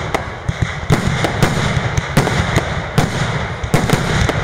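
Fireworks display: a rapid, irregular run of sharp bangs, about three a second, over a continuous low rumble.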